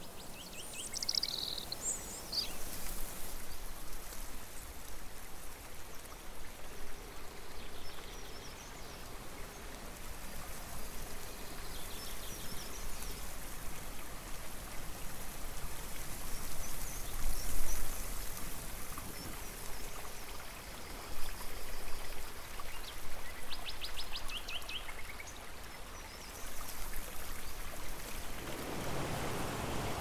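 Shallow woodland stream trickling steadily, with wild birds calling over it: quick high chirps near the start and a fast trill about two-thirds of the way through. Near the end a rush of wind and surf rises in.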